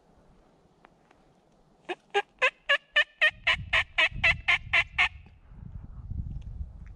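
Wild turkey yelping: a run of about thirteen evenly spaced yelps, roughly four a second, lasting about three seconds. A low rumbling noise starts partway through the run and goes on after the yelps stop.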